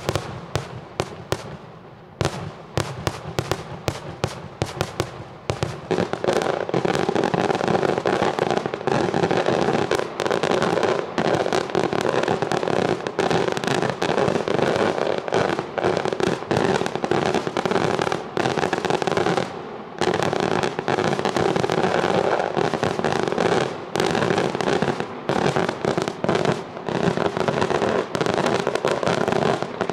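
Kaxxa tal-ħruġ fireworks going off in rapid succession: separate sharp bangs at first, then from about six seconds in a dense, almost unbroken barrage of bangs and crackling, with a few short breaks.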